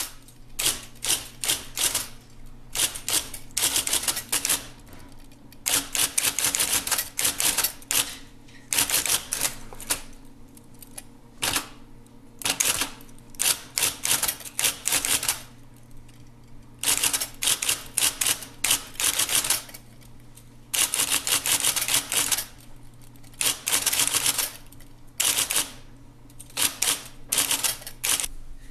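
Typewriter keys struck in quick bursts of typing, each run lasting a second or two with short pauses between, over a faint steady low hum.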